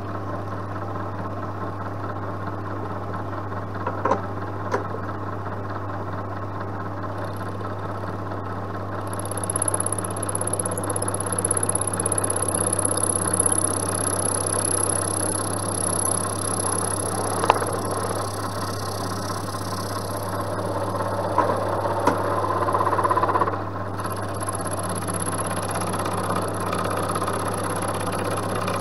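An endmill cutting a round metal workpiece, under the steady hum of the milling machine's motor, with a few sharp ticks. The cut grows louder and a thin high whine joins it from about nine seconds in until shortly before the end.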